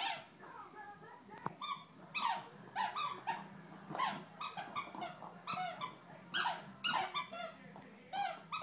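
Great Dane puppy, 8 or 9 weeks old, playing with a green rubber toy: a run of short, high squeaks that fall in pitch, about two a second.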